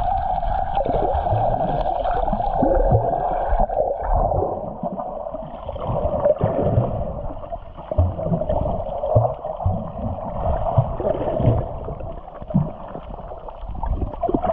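Muffled underwater sound through an action camera's waterproof housing held below the surface: water swishing and gurgling with irregular low thumps.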